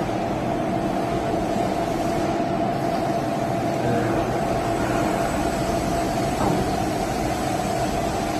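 Vertical machining center running: a steady mechanical hum with one constant whine over it.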